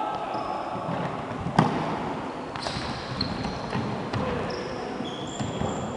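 Futsal being played on a wooden indoor court: one sharp thump of the ball being struck about a second and a half in, with short high squeaks of sneakers on the floor scattered through.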